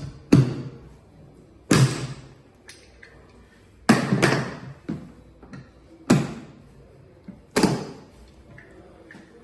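Slide hammer knocking out the locking latches of a plastic returnable container: about six sharp knocks a second or two apart, two of them in quick succession about four seconds in.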